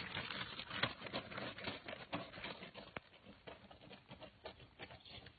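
Faint, irregular patter of running footsteps on a dirt track, growing fainter over the first few seconds.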